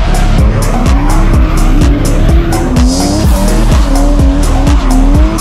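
Car engine revving and tyres squealing as it drifts, mixed with background music that has a steady beat.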